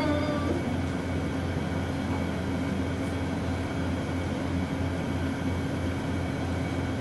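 Steady low hum with a faint hiss: room tone from the recording, with no other sound.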